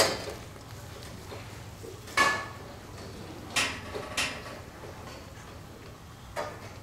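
Scattered metallic clanks and knocks, about five, over a low steady background. The loudest comes at the very start, and one about two seconds in rings briefly.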